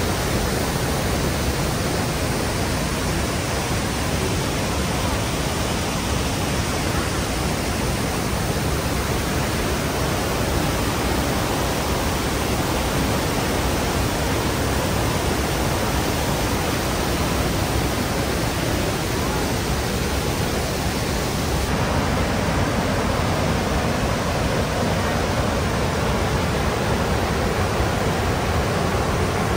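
The Rhine Falls, a large river waterfall, pouring over rocks: a loud, steady rush of falling and churning water, its tone shifting slightly about three-quarters of the way through.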